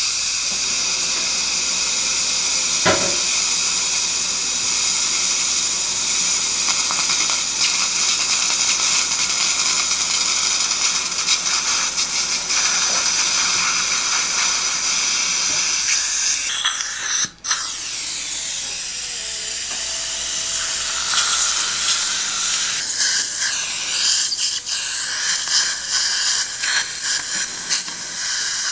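Steady hiss of surgical suction with the high whine of a dental implant handpiece running in the implant site. The sound cuts out briefly about two-thirds of the way through, and the pitch wavers near the end.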